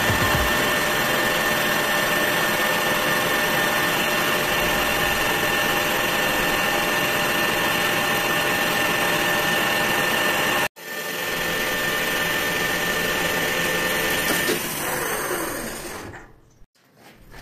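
Metal lathe running steadily with a constant high whine. A momentary break in the sound comes about eleven seconds in; then the machine spins down with falling pitch and stops near the end.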